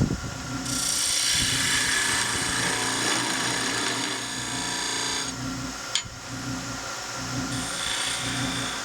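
Wood lathe spinning a pear-wood handle while a tool or abrasive rubs on the turning wood, making a hiss for about the first five seconds. Then a single click, and the lathe runs on with a soft, regular pulse.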